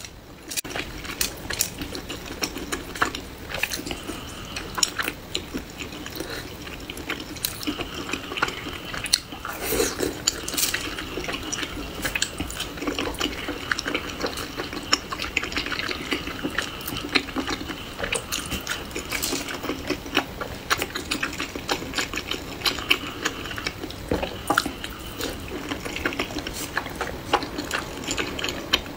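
Close-miked wet eating sounds: chewing and slurping of pan-fried soup dumplings in chili oil, with a steady stream of small crackling mouth clicks.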